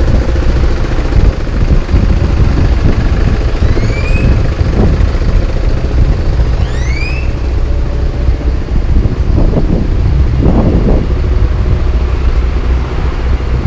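Wind buffeting the camera microphone as a loud, steady low rumble, over the noise of street traffic passing alongside. Two short rising whistles sound about 4 and 7 seconds in.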